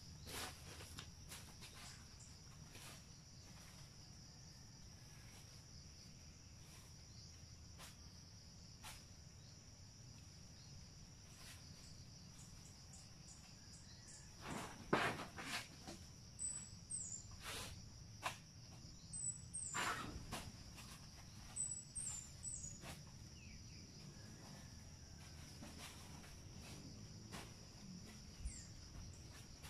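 Insects droning steadily at one high pitch, faint. Short bird chirps come in the middle of it, along with a cluster of sharp knocks and rustles about halfway through.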